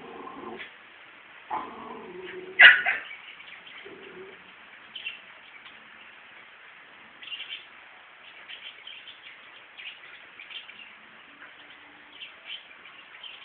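A dog whining in short bursts over the first few seconds, with one loud sharp sound about two and a half seconds in. Faint bird chirps go on through the rest.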